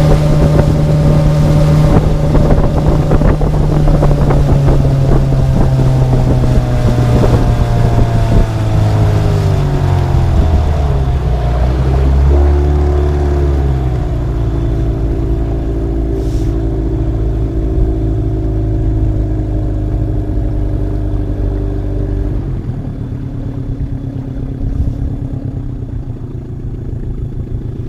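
Outboard motor driving an inflatable boat at speed. The engine note drops a few seconds before the middle as it throttles back, holds steady, then falls again and grows quieter near the end as the boat slows.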